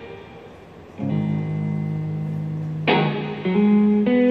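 Slow guitar music: plucked notes and chords ringing out, with new chords struck about a second in and louder ones near the end.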